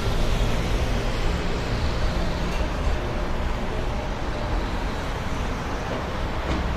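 Dense road traffic running steadily, a continuous low rumble of engines and tyres.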